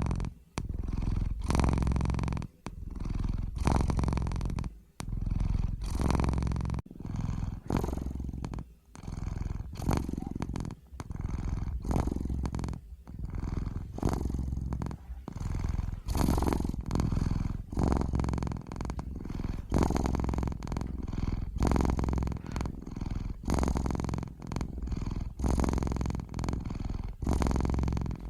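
A domestic cat purring steadily, the purr swelling and breaking in a regular rhythm of about once a second.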